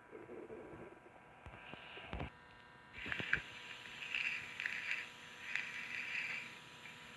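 A cartoon character's stomach growling in low irregular rumbles. After a cut about three seconds in comes high-pitched crying in short repeated sobs.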